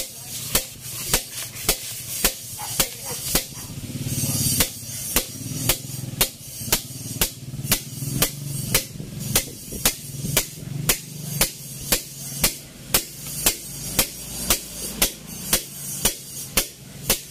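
Hammer striking a cap on top of a cylinder liner, driving the liner down into the bore of an Isuzu 4BC2 diesel engine block: steady, evenly spaced blows, about two a second.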